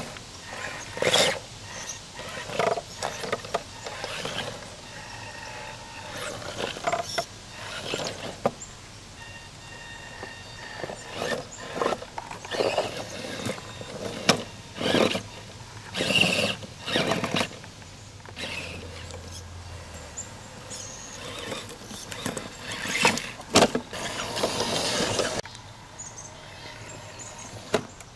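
Tamiya CR-01 scale RC crawler's electric motor and gearbox whining in short, irregular bursts as it is driven over logs, roots and bark, its tyres scrabbling on wood and dirt.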